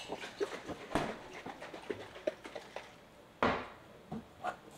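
Glassware and a bottle handled on a kitchen counter: a string of small clicks and taps, with two louder knocks, one about a second in and one near the end.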